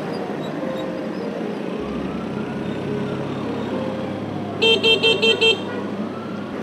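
Steady engine and road noise from a moving motorcycle, with a siren slowly wailing up and down. About two-thirds of the way through, a horn toots five quick times, the loudest sound.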